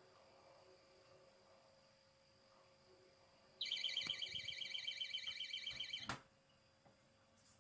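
Magnetic window alarm modded into a freezer door alarm going off, sounding the door left ajar: a loud, rapidly warbling electronic beep starts about three and a half seconds in. It cuts off after about two and a half seconds with a thump as the freezer door is pushed shut.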